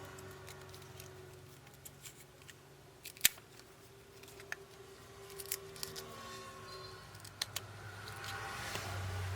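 Scattered sharp clicks and taps of small hand tools on a phone's parts during a repair, the loudest about three seconds in, over a low steady hum.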